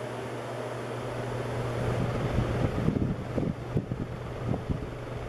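Banvil Spinner 90 cm ceiling fan running, with a steady low motor hum under the rush of air. From about two seconds in, uneven gusts from the blades' airflow buffet the microphone.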